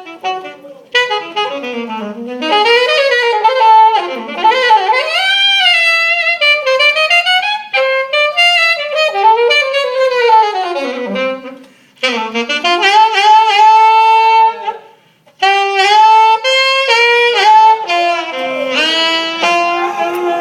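Unaccompanied jazz saxophone cadenza: fast runs and bent phrases broken by short pauses, settling on a long held note near the end.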